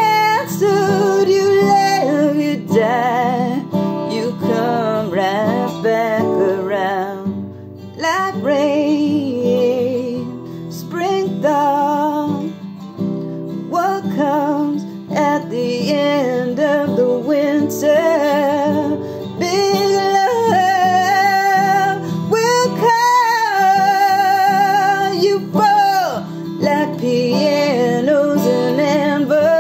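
A woman singing with a wavering vibrato, accompanying herself on acoustic guitar, with a brief break in the voice about a quarter of the way through.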